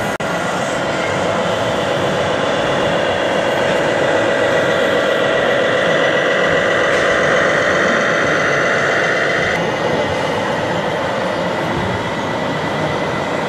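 A radio-controlled MAN semi truck's onboard sound module playing a diesel engine running steadily as the truck drives past. The engine hum cuts off suddenly about two-thirds of the way through, leaving the steady background noise of a busy exhibition hall.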